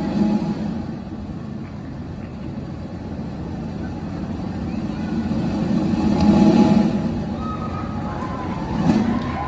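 A steady low rumbling drone that swells about six seconds in, with faint voices over it.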